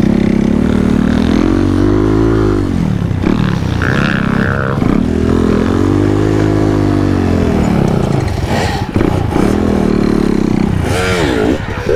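Kayo T2 enduro motorcycle's single-cylinder engine, heard from the rider's seat, revving up and easing back in several long swells, with a quicker rev-and-drop near the end. The roll-offs are engine braking, because the rear brake has no pads.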